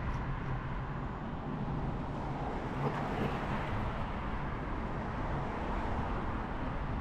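Steady road traffic noise: a continuous rumble and hiss with no single event standing out.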